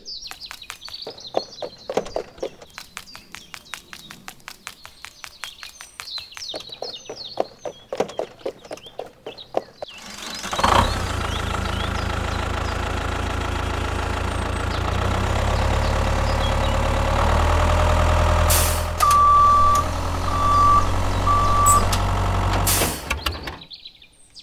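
Faint rapid clicking and chirping, then about ten seconds in a tractor's diesel engine starts running steadily, with a deep low rumble. Three short beeps in one tone sound like a reversing alarm near the end, and the engine cuts off suddenly.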